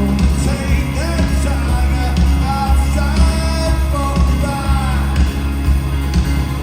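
Live rock band playing with a heavy, pulsing bass beat under a sung vocal line.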